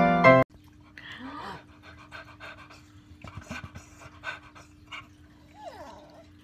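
A puggle panting, a faint run of short, quick breaths, after piano music cuts off about half a second in.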